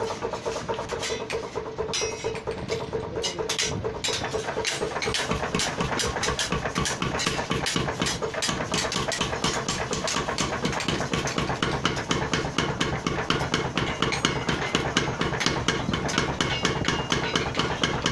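Power hammer pounding red-hot steel in rapid, even blows, over a steady hum. The strokes come thicker and more regular after the first few seconds.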